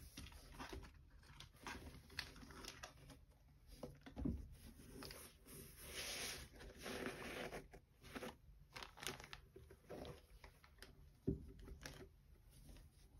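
Gloved hands handling leather sneakers: soft rubbing, tapping and crinkling on the leather upper and padded tongue, with two soft thumps as the shoes are moved and set down.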